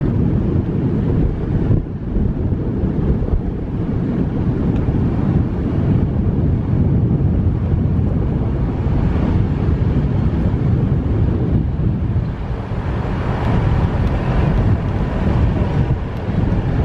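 Wind buffeting the microphone of a moving car, a steady low rumble with a hiss above it that grows a little stronger about twelve seconds in.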